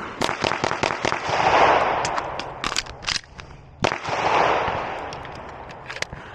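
9mm Glock 47 pistol shots: a rapid string of cracks in the first second, then several more single shots spaced out. A rushing noise swells and fades twice between them.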